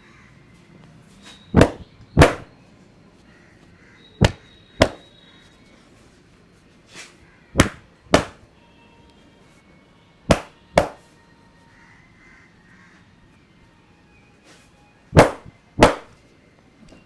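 Hand slaps of a vigorous head and back massage: five pairs of sharp slaps, the two in each pair about half a second apart, with a few seconds between pairs.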